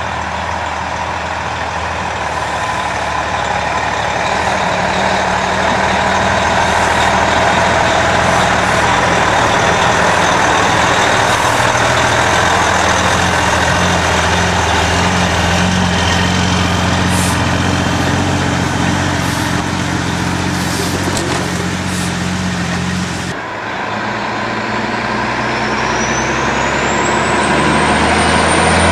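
Kenworth K104 cabover truck's Detroit diesel engine pulling a loaded chip trailer, a steady drone that grows louder over the first several seconds. It changes abruptly about 23 seconds in, and a thin high whine climbs in pitch over the last few seconds.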